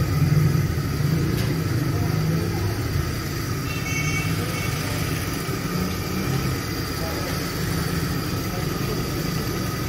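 A motor running with a steady low hum, and a brief high chirp about four seconds in.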